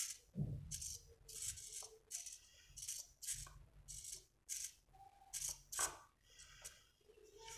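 Small blue micro RC servo whirring in short bursts, a bit under two a second, as it swings the steering of a homemade wooden front axle back and forth in a steering test. A low thump sounds about half a second in.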